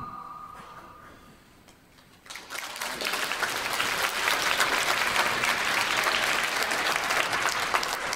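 The last held notes of the music fade away over the first second, then after a short lull an audience applauds, the clapping starting a little over two seconds in.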